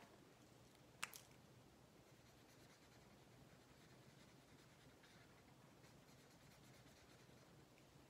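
Felt-tip marker colouring on paper: faint, quick scratchy strokes in a quiet room. A sharp double click about a second in.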